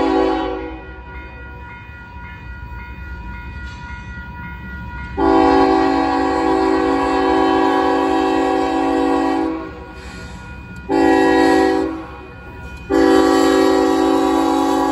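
Union Pacific GE Evolution-series locomotive air horn sounding the grade-crossing signal: the end of one long blast, then a long blast, a short one and another long one that runs on. A low rumble of the approaching train runs underneath.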